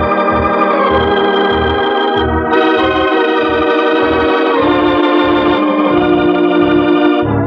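Organ music bridge from an old-time radio drama: sustained chords over a low note pulsing about twice a second, shifting chord partway through and cutting off near the end.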